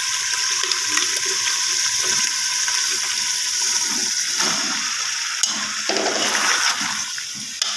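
Chicken frying in masala in a metal pot, a steady sizzle, with a steel spoon stirring. About four seconds in, chopped bottle gourd is tipped in from a plastic bowl, and the pieces tumble into the pot and are stirred through.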